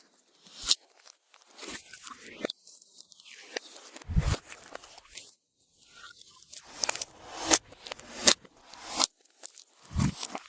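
Hands squishing, pressing and stretching glossy slime, with irregular sticky clicks and crackles and a couple of soft low thumps, about 4 seconds in and near the end.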